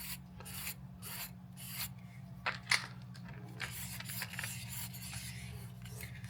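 A series of short rasping rubbing strokes, about two a second at first, then looser scraping, over a steady low background hum.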